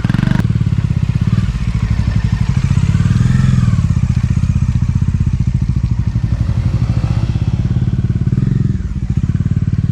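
Motorcycle engine running hard, its revs rising and falling.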